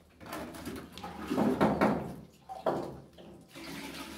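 Water poured into a PVC sanitary drain line, splashing and gurgling in a few bursts as the pipe is topped up for a water-fill leak test.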